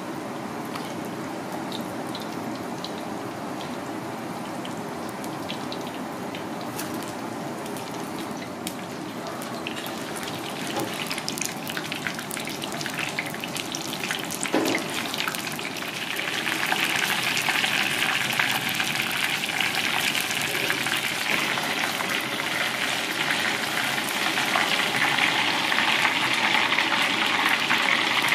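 Battered pieces deep-frying in a pan of hot oil: a steady sizzle and crackle that grows louder and brighter a little past halfway as the oil bubbles hard.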